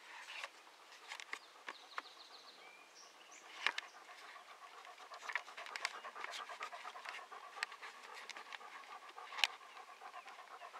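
Faint panting close to the microphone, settling into a steady run of breaths about four seconds in, with a few short high chirps and clicks early on.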